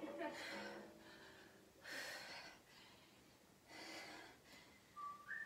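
A person breathing hard while doing bodyweight squats: three heavy breaths, about two seconds apart. Near the end, someone begins whistling a tune.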